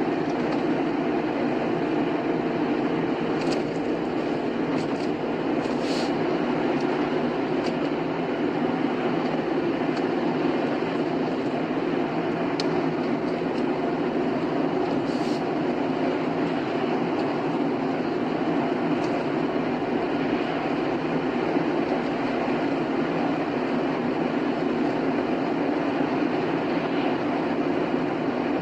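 A car driving at highway speed: a steady rumble of road and tyre noise, with a few faint clicks now and then.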